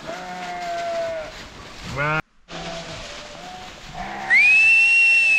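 Bleating from a flock of sheep and goats: a held call, then a rising one. Near the end comes a loud, high whistle held for about a second and a half, rising into its note and dropping off at the close: a shepherd's whistle to the flock.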